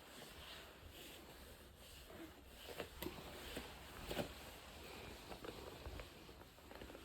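Faint scattered light taps and clicks with soft rustling over a low background hiss, a few sharper clicks about three and four seconds in.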